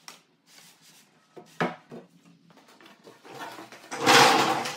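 A heavy solid-wood tabletop knocking a few times against a wooden table base, then scraping as it slides wood on wood over the base. The scrape builds about three seconds in and is loudest for about a second near the end.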